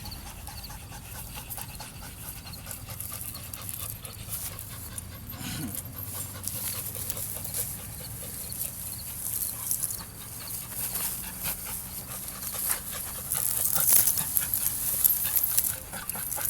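A dog panting hard while tugging on a rope, with dense rattling and clicking throughout that gets louder near the end.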